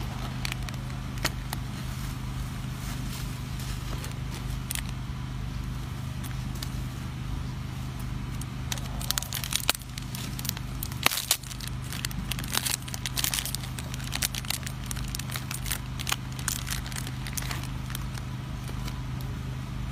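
Plastic snack wrapper crinkling and crackling as a macaque handles it, a run of sharp rustles that grows busier about eight seconds in, over a steady low hum.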